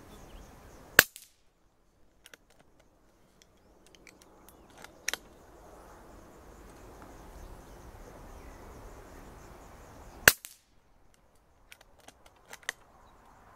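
Two shots from an air rifle fitted with new springs, firing valve and hammer, each a single sharp crack, about nine seconds apart. A few quieter clicks fall between and after the shots.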